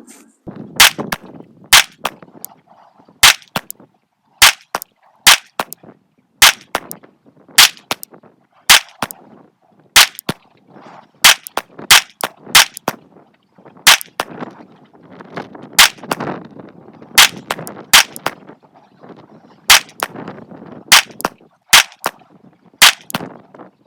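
9mm pistol firing 124-grain Speer Gold Dot rounds in a slow, steady string of about twenty single shots, roughly one a second, emptying a 21-round magazine.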